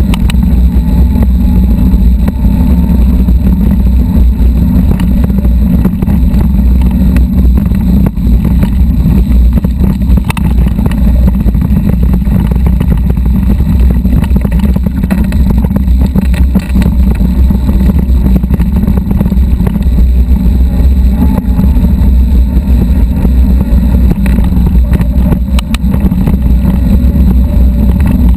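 Steady heavy rumble of wind buffeting the camera microphone while an electric-assist mountain bike rides a rocky gravel trail, with tyre crunch and scattered sharp rattling clicks from the bike over stones.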